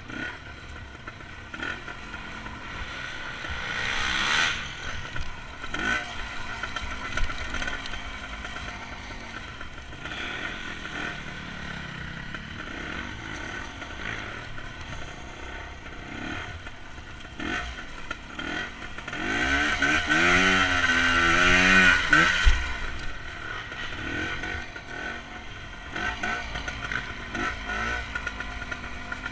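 Dirt bike engine running as it is ridden over a rough trail, its pitch rising and falling with the throttle, with a long rev about two-thirds through that is the loudest part. Knocks and rattles from the bike bouncing over the ground run under it.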